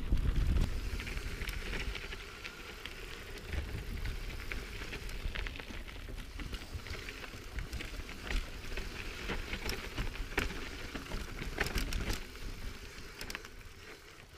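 Mountain bike rolling down rocky dirt singletrack: tyres crackling over dirt and stones with many small sharp clicks and rattles. Wind rumbles on the microphone in the first second.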